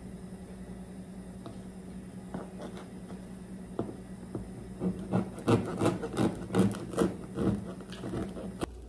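A serrated bread knife sawing through a hard-crusted baguette on a wooden cutting board: crunchy, rasping strokes, sparse at first and then about two or three a second in the second half. A steady low hum runs underneath and stops just before the end.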